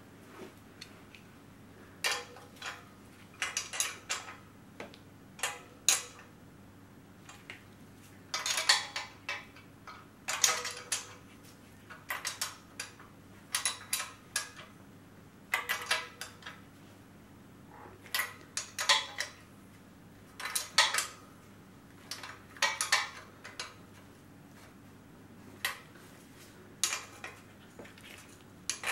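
Small steel studs and nuts clinking against a hand tool and the model Burrell traction engine's cylinder block as the studs are screwed in one by one: irregular short metallic clinks, some in quick runs of several, with pauses between.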